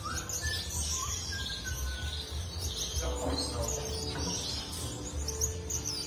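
Background music: a pulsing low beat under held tones, with quick high chirps that sound like birdsong woven through it.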